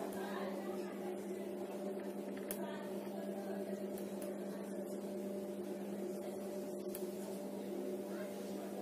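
A steady hum made of several even, unchanging tones, with faint scratches of a marker writing on a whiteboard now and then.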